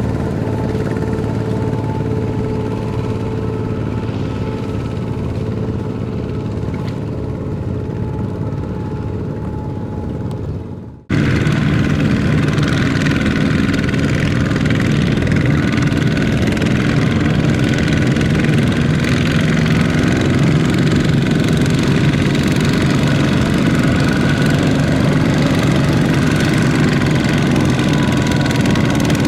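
Tractor engine running steadily under load. An abrupt cut about eleven seconds in gives way to a louder, deeper engine run for the rest.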